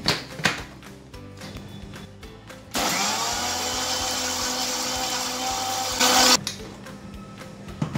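Philips mixer-grinder blending cucumber and beetroot with a little water into a paste. After a couple of clicks as the lid is pressed onto the jar, the motor starts about three seconds in with a rising whine. It runs steadily for about three seconds, gets louder for a moment, then cuts off.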